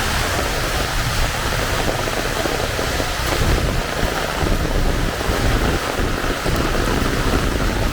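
Heavy rain falling in a steady, dense hiss, with wind buffeting the microphone in an uneven low rumble.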